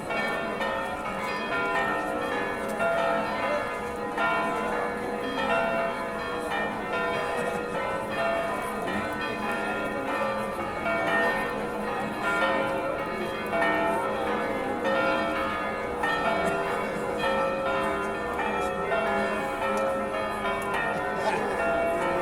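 Cathedral church bells pealing: several bells struck over and over, their ringing tones overlapping continuously.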